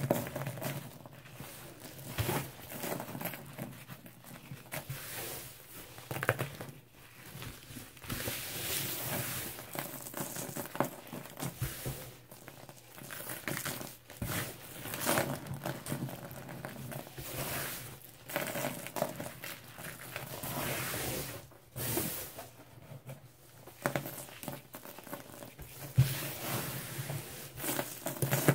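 Hand crumbling and squeezing chunks of a crisp dried slab of baking soda, lemon Comet cleanser and chalk: soft crunching and crackling as the slab breaks and powder sifts down. It comes in irregular bursts, with a few sharper crunches.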